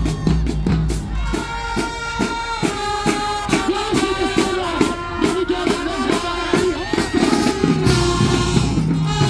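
Marching band music: brass playing held notes and melody lines over a steady drum beat, with a heavy bass-drum low end at the start and again near the end.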